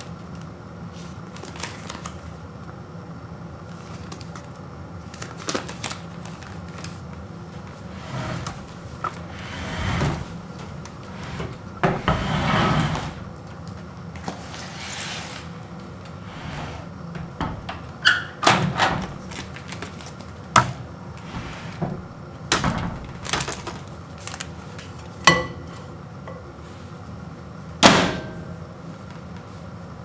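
A folded paper microwave popcorn bag rustling and crinkling as it is unfolded and handled, then several sharp clicks and knocks as the bag goes into a microwave oven and its door is opened and shut. A faint steady hum runs underneath.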